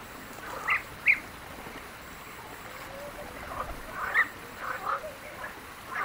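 Short animal calls over a faint steady background: two sharp calls about a second in, then a cluster of quicker calls around four to five seconds in.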